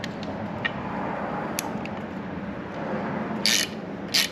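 Short stubby 3/8-inch ratchet tightening a bolt against a wrench-held nut: steady ratcheting with a few light metal clicks, then two short, sharp rasps near the end.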